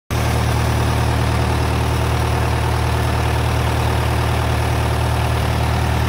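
John Deere farm tractor's engine running steadily at an even speed, a low, unchanging engine note.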